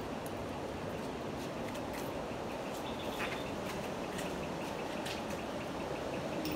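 Light clicks of dogs' claws on a tile floor over a steady background hiss, with a faint rapid chirping repeating in the background.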